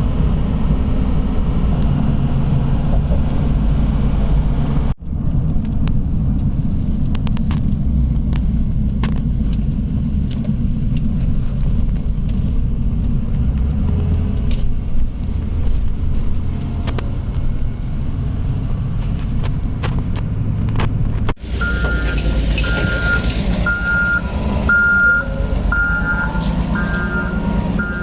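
Vehicle engine running with a steady low rumble, across three edited shots. In the last shot a reversing alarm beeps repeatedly over the machinery noise.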